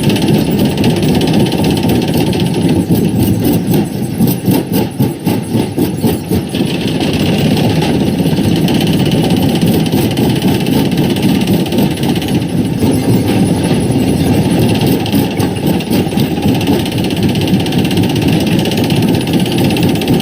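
Quarry primary rock crusher running with a loud, steady mechanical rumble, with a spell of rattling knocks as rock passes through it about three to six seconds in.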